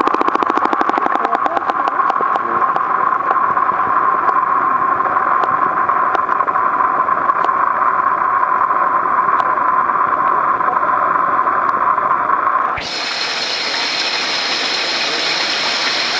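Muffled underwater pool noise heard through a submerged camera: a steady rushing hiss with scattered clicks, thick at first and then sparse. About 13 seconds in it cuts abruptly to the brighter open-air hiss of the pool's water as the camera comes out above the surface.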